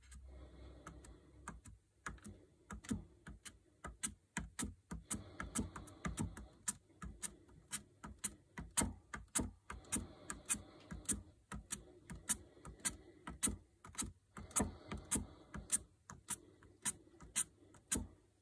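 Foam sponge block dabbed repeatedly against an embossed brick-pattern model building wall: a quick, irregular series of light taps, a few a second, as red paint is stippled onto the bricks.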